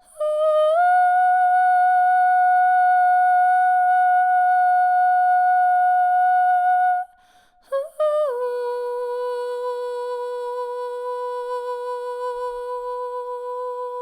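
A woman's voice toning long held notes for sound healing: one high note held for about seven seconds, then after a brief breath a lower note, reached with a small downward slide and held steadily to the end.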